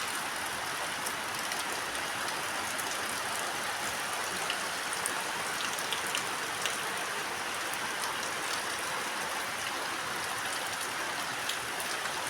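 Steady rain falling, an even hiss with scattered faint ticks of individual drops landing.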